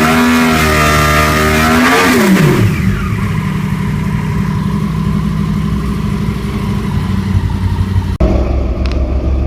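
2009 Yamaha R1's crossplane inline-four engine revving once, rising for about a second and falling back, then settling into a steady idle.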